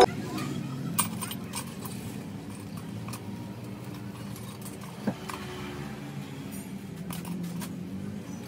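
Workshop room noise with no music: a low steady hum, scattered faint clicks and two sharper taps, one about a second in and one about five seconds in.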